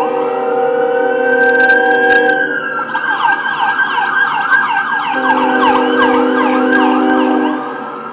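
An emergency vehicle's siren wails, then switches to a rapid yelp about three seconds in. Under it a deep multi-note horn chord sounds in two long blasts.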